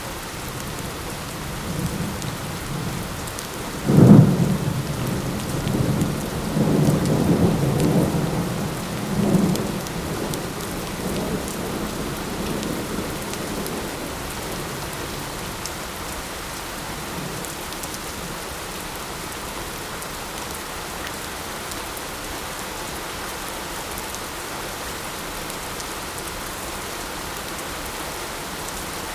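Steady light rain, with a thunderclap about four seconds in that rolls on as low rumbling for several seconds before fading back into the rain.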